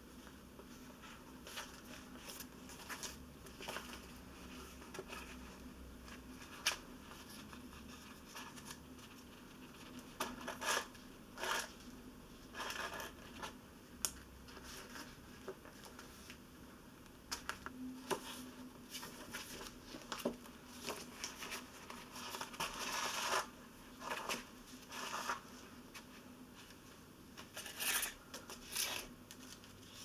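Hand-sewing a book: soft rustles and scratches of paper signatures and card cover being handled, with thread drawn through the paper and scattered small clicks. The rustling grows louder in short clusters partway through and again near the end.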